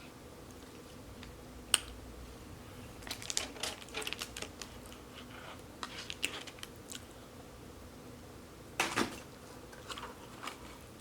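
Close-up eating sounds: scattered small clicks and crackles of biting and chewing, with a louder crunchy burst about nine seconds in.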